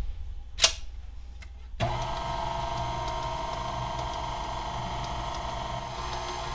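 A click, then about two seconds in a KitchenAid stand mixer switches on and its motor runs at a steady hum, the flat beater turning through the cake mix and pumpkin batter.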